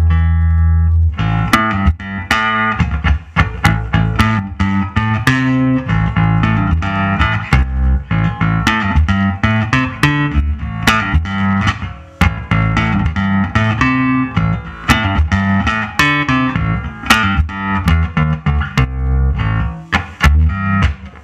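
1973 Fender Precision Bass played through a Fender Pro Reverb amp driving an Ampeg bass cabinet: a held low note, then a long run of quickly plucked notes.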